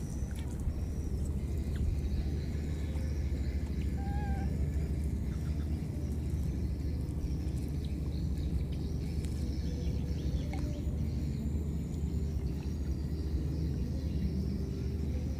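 Steady low outdoor rumble beside a reedy pond, with faint high chirps and a short wavering squeak about four seconds in.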